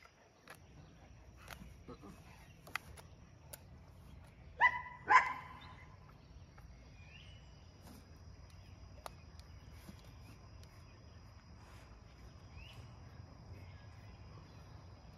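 A dog barking twice in quick succession, a little under five seconds in, against faint scattered clicks and a steady faint high tone.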